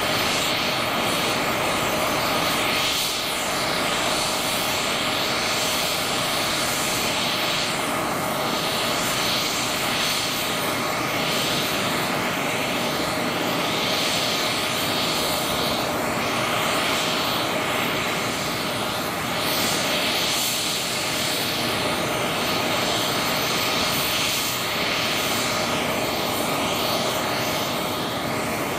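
Steady whine of a Kamov Ka-32 helicopter's turbine running with its coaxial rotors still stopped, at the early stage of engine start-up. A dense, even hiss carries a few steady tones and holds level without winding up.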